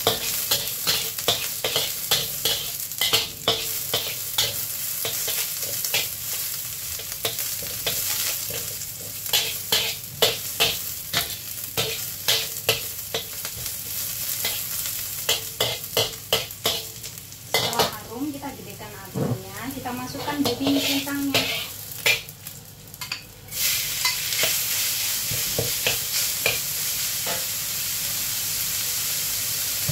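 A metal spatula scrapes and taps against an iron wok while sliced garlic and shallots sizzle in oil. About three-quarters of the way in, the sizzle jumps to a louder, steady hiss as minced pork goes into the wok over high heat.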